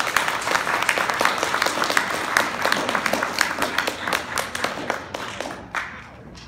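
Audience applauding, with one pair of hands clapping close by; the applause thins out and fades about a second before the end.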